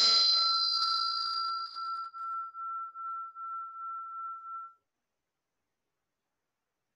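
A metal hand meditation bell struck once, then ringing out with a single clear tone that wavers in a slow beat and dies away, ending about five seconds in. It marks the close of the meditation.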